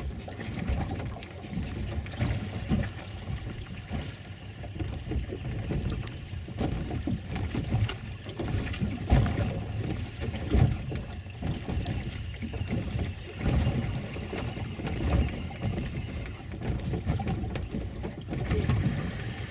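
Wind buffeting the microphone and water lapping against a boat's hull, with irregular low thumps.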